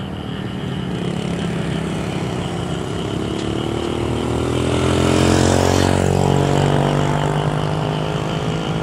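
Boeing 737 MAX 8's CFM LEAP-1B turbofan engines at takeoff thrust during the takeoff roll, a low rumble growing louder as the jet nears, loudest a little past halfway. From about three seconds in, a whining engine tone rises in pitch.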